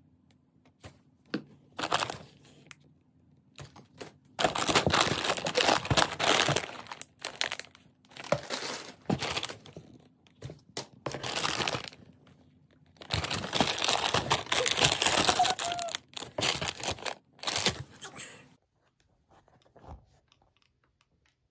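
Plastic snack packets crinkling and rustling as they are rummaged out of a cardboard box, in several bursts of one to three seconds. The rustling stops near the end.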